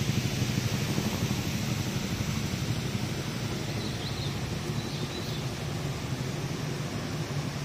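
Steady rushing outdoor noise, with two faint high chirps about four and five seconds in.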